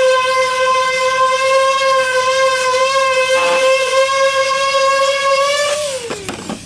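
Electric sander running on a plywood cabinet back panel with a steady whine, then switched off and winding down, its pitch falling, near the end.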